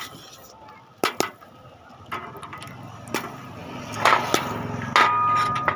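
Metal clatter from an iron sieve and pan: sharp knocks and clinks every second or so over a low scraping rustle, with a ringing metallic clang about five seconds in.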